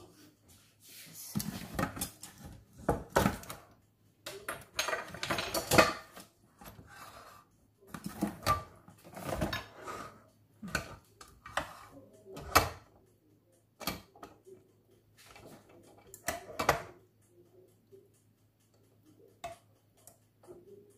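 Irregular clinks, knocks and scrapes of metal kitchenware: a pot of béchamel sauce handled on the counter and a metal ladle dipping into it. A faint steady low hum runs underneath.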